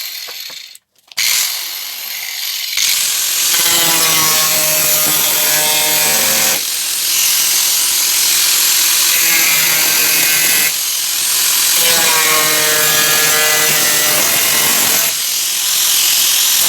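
Angle grinder with a cutting disc cutting through rusty sheet steel, the inner skin of a van's sliding door. The motor's pitch sags and recovers as the disc bites, with a few brief breaks in the cutting.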